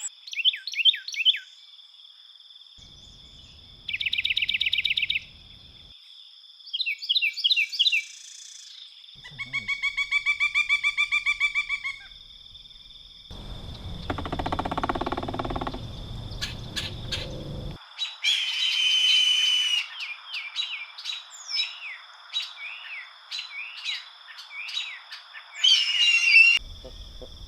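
A succession of different wild birds calling and singing, one species after another in short separate recordings: a rapid trill, runs of quick repeated notes, slurred whistles, a harsher noisy call and scattered chirps.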